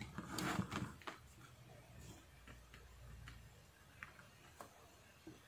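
Faint handling noise and a few small, sparse clicks from a digital multimeter and its test probes being pressed and placed on a circuit board.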